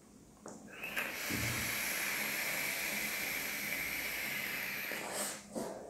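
A long draw of about five seconds on a Hussar Vapes Legacy single-coil rebuildable atomizer fired on a mod: a steady hiss of air pulled through the open airflow while the coil vaporizes e-liquid. It starts about half a second in and stops shortly before the end.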